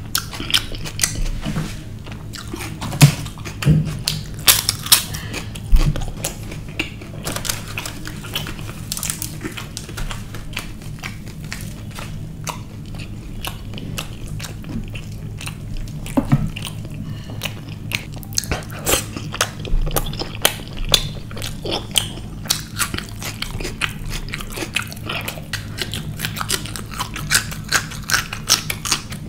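Close-miked mouth sounds of eating: chewing and biting with many short wet clicks and occasional crunches, from a man eating a curry meal and raw salad by hand. A raw green chilli is bitten near the end. A faint steady low hum runs underneath.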